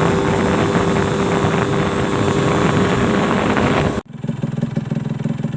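Modenas Dinamik 120 motorcycle riding along, the engine running under heavy wind noise on the microphone. About four seconds in, the sound cuts off suddenly and is replaced by a quieter, steadier engine note with much less wind.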